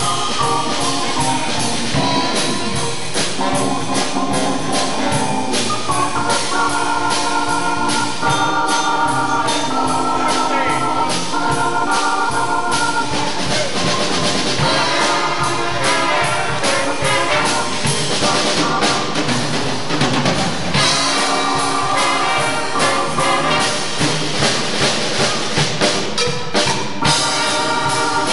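Live jazz horn band playing: brass and saxophone section chords over a drum kit keeping steady time.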